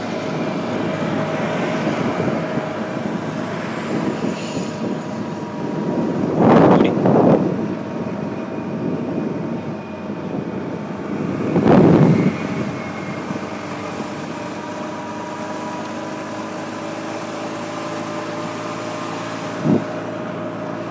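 Golf cart driving uphill on a paved road: a steady running noise with a faint steady whine and wind on the microphone. Two louder rushes of noise come about a third of the way in and again just past halfway.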